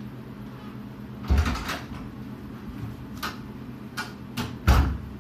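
A wooden interior door being handled: a heavy thump about a second in, a few sharp latch clicks, then the door shut with a thud near the end. A steady low hum runs underneath.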